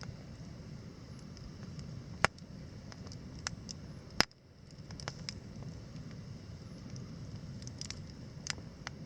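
Wood campfire crackling: a low steady rush of burning with sharp pops and snaps scattered through it, the loudest about four seconds in.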